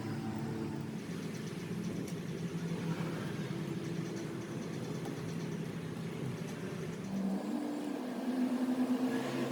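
Steady hum of a running motor or engine, its pitch stepping up about seven seconds in.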